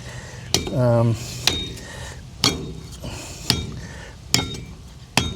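A slasher (long-handled bush-cutting blade) chopping into wood: six sharp strikes about a second apart, each with a brief metallic ring from the blade. The blade is being test-swung on its newly repaired handle.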